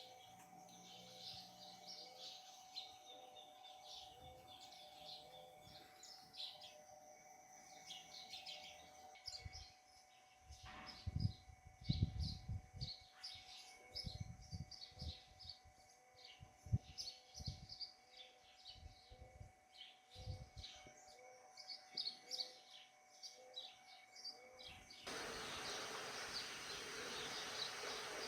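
Many birds chirping and calling outdoors, with a short low note repeating about twice a second under the chirps and some low thumps in the middle. About 25 seconds in, a steady hiss suddenly takes over.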